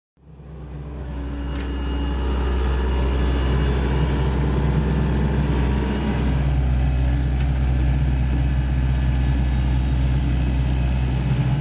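Diesel engine of a Sany SY75 mini excavator running steadily with a deep hum, fading in over the first two seconds, with a faint clank a couple of times.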